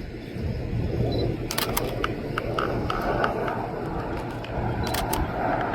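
Jet engine rumble from the Red Arrows' Hawk T1s, whose Adour turbofans grow slowly louder as the formation approaches. A few sharp clicks sound over it.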